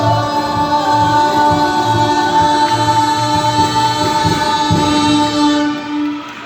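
Singers and a live ensemble hold the final chord of a musical-theatre number, a steady sustained chord over a low pulsing beat, and cut off together about six seconds in.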